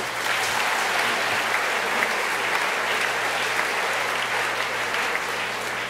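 Audience applauding: dense, steady clapping of many hands that starts abruptly and eases a little near the end.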